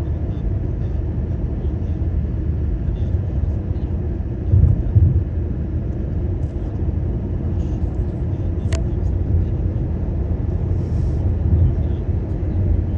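A car driving along, a steady low rumble of road and engine noise, with a brief louder bump about four and a half seconds in and a single sharp click near nine seconds.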